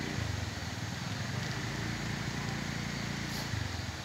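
A vehicle engine running steadily at low speed, with a fast even pulse.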